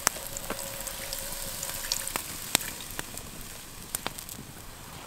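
Broth and balsamic vinegar sizzling and steaming in a hot cast-iron skillet of apples and onions as the pan is deglazed, a steady hiss with sharp pops and clicks every half second or so.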